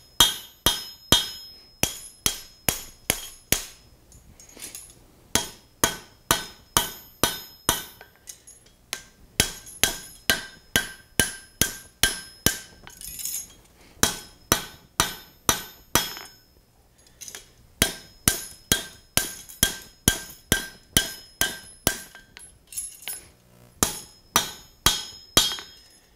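Hand hammer striking red-hot steel on the edge of an anvil, bending a square-cornered lip into the bar. The blows come steadily at about two a second, broken by a few short pauses, and each one rings briefly.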